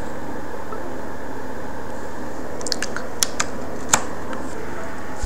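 A handful of short sharp clicks between about three and four seconds in, the last the loudest, over a steady hiss.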